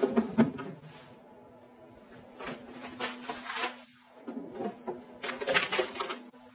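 Hard plastic knocks and clatter from a plastic wall-mounted tissue box being handled: a sharp knock at the start and another about half a second in as it is pressed into place, then rattling and rustling as the lid is opened and a wrapped tissue pack is slid in. A faint steady hum runs underneath.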